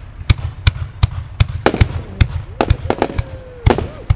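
Aerial fireworks shells bursting in quick succession: a rapid, irregular string of sharp bangs, about three or four a second.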